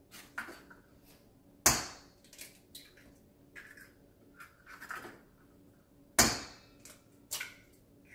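Eggs being cracked on the rim of a stainless steel mixing bowl: two sharp cracks about four and a half seconds apart and a lighter one near the end, with small clicks and shell scrapes between as the shells are pulled open.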